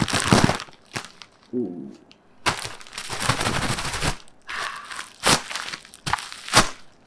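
Bubble-wrap packaging crinkled and pulled at by hand while a parcel is being opened, coming in bursts: a longer stretch of rustling about two and a half seconds in, then a few sharp crackles near the end.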